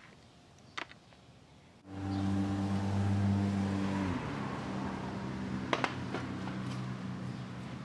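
A motor running with a steady low hum and hiss. It starts abruptly about two seconds in and drops slightly in pitch about two seconds later. A few faint clicks come before it.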